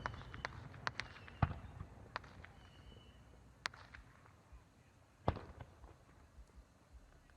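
Fireworks display dying down after a barrage, with scattered sharp reports and crackles over a fading rumble. One louder bang comes about five seconds in.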